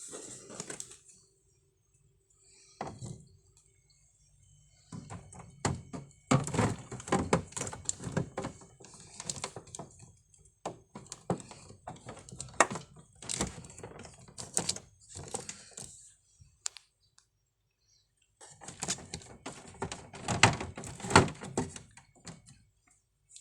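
Food containers and packaging being handled in a refrigerator: clattering, rustling and small knocks in two long stretches, with a quiet pause between them.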